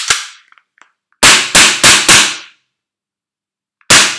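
Tokyo Marui USP Compact gas blowback airsoft pistol firing. Four sharp shots come in quick succession about a second in, then one more near the end, each the crack of the gas discharge with the slide cycling. A light click comes at the very start.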